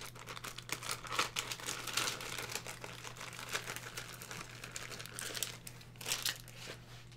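Plastic wrapping, likely shrink-wrap, crinkling and crackling as it is handled, in irregular bursts of small crackles.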